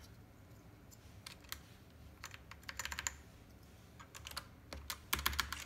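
PBT keycaps clicking on a mechanical keyboard as keys are pressed down with the fingers: scattered clicks, then a quick flurry about halfway through and a louder flurry near the end.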